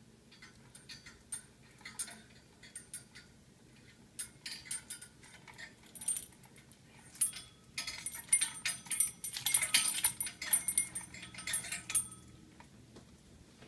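An African grey parrot working a hanging toy with its beak, rattling and clicking its small metal parts in a run of metallic jangles. The jangling is sparse at first, gets busier and louder from about eight seconds in, and stops around twelve seconds.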